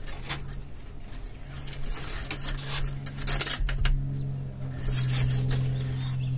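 An oil dipstick on a Yamaha 1.8 L four-stroke jet ski engine is slid down into its tube and drawn back out, giving a few short scrapes and clicks. The loudest comes about three and a half seconds in. A steady low hum runs underneath.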